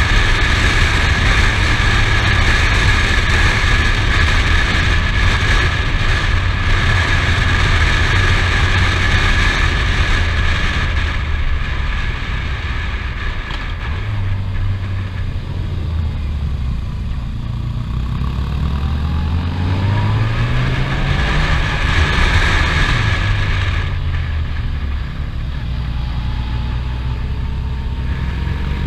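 Touring motorcycle engine running under way, heard from the rider's helmet with wind rushing over the microphone. The wind noise eases about a third of the way in, and in the second half the engine pitch rises and falls as the bike slows and accelerates through the bends.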